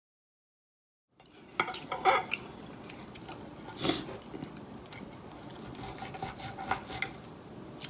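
After about a second of silence, a steel knife and fork scraping and clinking against a plate as steak is cut, with a few sharper clinks among the scraping.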